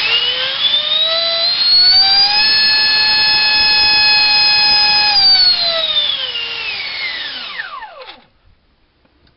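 65 mm electric ducted fan driven by a GoolRC 2958 4200 kV inrunner motor on a 4-cell battery, run up to full throttle. It makes a rising whine over a whooshy rush of air, holds a steady pitch for a few seconds, then winds down and stops about eight seconds in.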